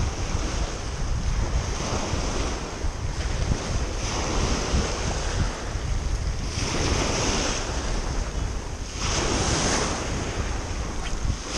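Small waves breaking and washing up a pebble beach, the surf swelling every couple of seconds, with wind buffeting the microphone.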